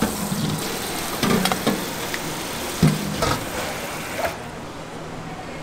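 Water from a sink spray faucet running over cooked noodles being rinsed in a stainless steel colander, with several short clanks of steel colander and bowls.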